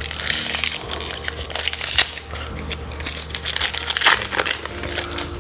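Magic: The Gathering booster pack's foil wrapper crinkling and tearing open in the hands: a dense run of crackles, with sharper rips about two seconds and four seconds in.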